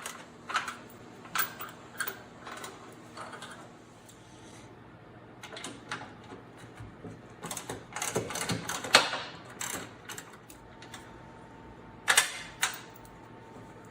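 A wrench working the two mounting bolts of a snowblower gear reduction unit: irregular metallic clicks and clinks, with a sharp knock about twelve seconds in.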